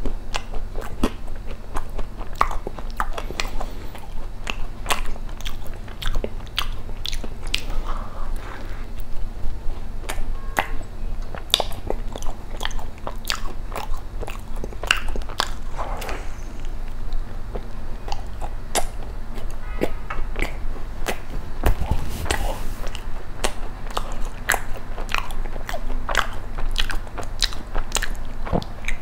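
Close-miked chewing and biting of a chocolate macaron, with many crisp clicks, small crunches and wet mouth sounds coming irregularly.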